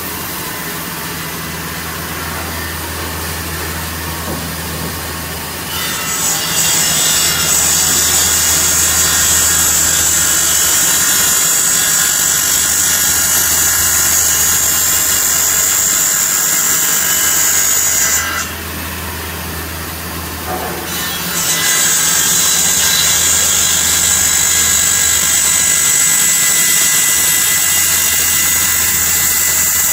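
Woodmaster WM-1325RS CNC router's circular saw blade running and cutting through a board: a steady machine hum, joined about six seconds in by the loud, high, steady whine of the blade in the cut. The whine drops back to the hum for about three seconds past the middle, then the cut resumes.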